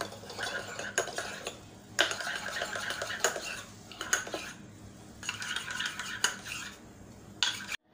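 Steel teaspoon stirring and scraping around a small stainless-steel bowl, mixing neutral gel with a little water, with clinks and scrapes about once a second.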